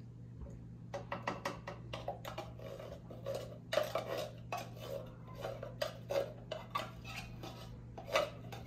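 A spoon scraping and clinking against the inside of an opened tin can of sweetened condensed milk, emptying it into a blender jar. The strokes are short and irregular and start about a second in.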